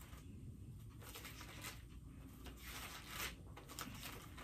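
Bible pages being leafed through: faint paper rustling in several brief bursts.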